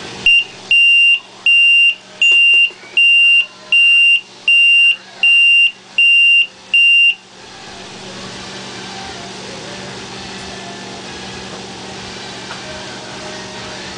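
Low-voltage alarm's buzzer beeping, about ten short high beeps a little over one a second, which stop about seven seconds in. The beeping signals that the monitored battery voltage has fallen to about 11.3 V, below the alarm's set point, and it stops once the voltage rises back to about 13 V.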